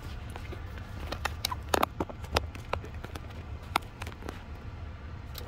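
Light clicks and taps at irregular intervals over a low steady hum: hands working the ignition key and dashboard switches inside a car.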